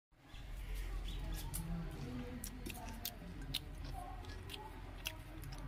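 Irregular light clicks and scrapes of a steel fork against a steel plate while eating, over a low background murmur.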